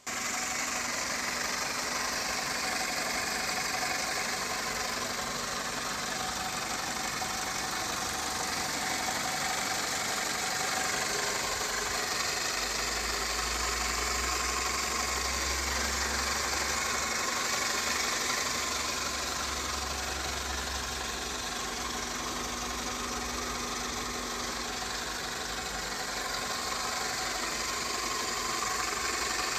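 Toyota 5S-FE 2.2-litre inline-four petrol engine idling steadily, heard up close in the open engine bay.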